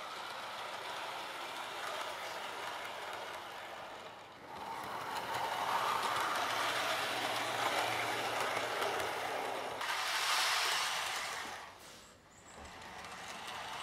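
Model railway train running along the track, its small wheels making a steady rolling rattle over the rails. It gets louder in the middle and changes abruptly twice, at cuts between shots.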